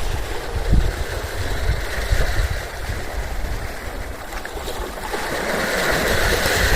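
Small sea waves lapping and washing at the shore, the wash swelling again in the second half, over a gusty low rumble of wind on the microphone.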